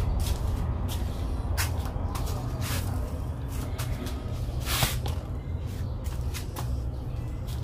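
Scattered clicks and knocks of tools and parts being handled, over a steady low hum, with one brief, louder hiss a little past halfway.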